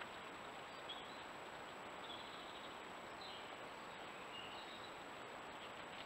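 Steady faint hiss of a trail camera's microphone with a thin, high, constant electronic whine, and a few faint, short, high chirps scattered through.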